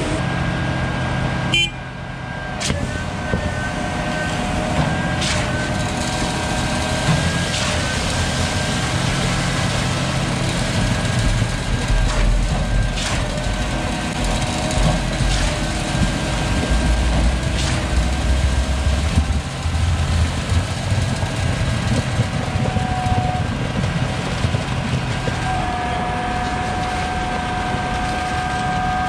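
Diesel engines of a concrete pump truck and ready-mix trucks running steadily while concrete is pumped, with a few scattered knocks and clanks.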